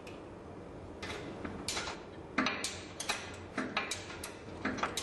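Irregular clicks and knocks from tools and metal pump parts being handled during the last steps of reassembly, starting about a second in. A low steady hum runs underneath.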